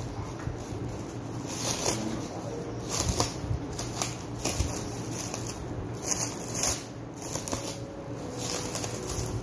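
Thin clear plastic film crinkling and rustling in the hands as it is unfolded and stretched out, coming in uneven bursts.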